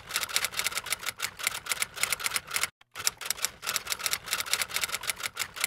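Typewriter typing sound effect: rapid key clicks in two runs, with a short break just under three seconds in, stopping abruptly near the end.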